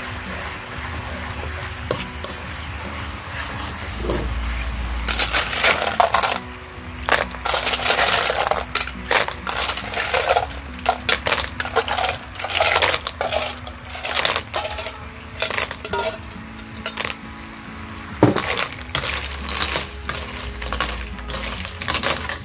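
Sauce sizzling in a wok, then, from about five seconds in, a long run of hard clicks and clatter as sea-snail shells are tipped in from a metal bowl and stirred with a slotted metal spoon. The shells knock against the wok and against each other.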